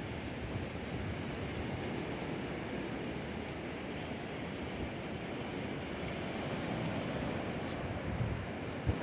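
Ocean surf washing onto a sandy beach in a steady rush of noise, with a low buffet of wind on the microphone near the end.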